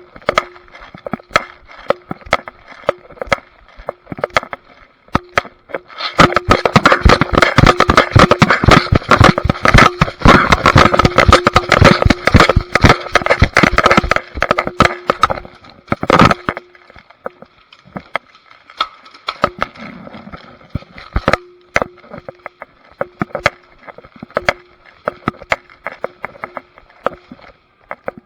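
Rapid clicking and scraping, dense and loud from about six to fourteen seconds in, with one sharp knock a couple of seconds later and scattered clicks the rest of the time.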